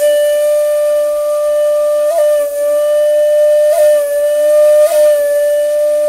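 Japanese bamboo flute holding one long, steady high note with audible breath noise, ornamented by three quick grace-note flicks about two, four and five seconds in.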